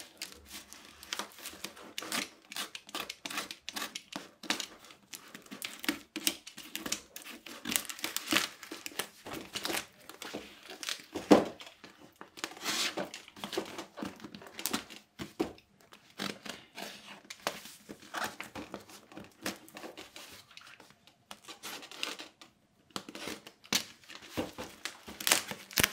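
A knife slicing and sawing through the packing tape and cardboard of a heavily taped courier parcel. Irregular scratchy cuts come with crinkling of plastic tape and tearing of cardboard, the sharpest tear about eleven seconds in.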